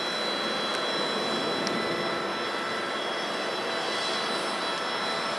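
Steady jet turbine noise: an even rush with several high, steady whining tones.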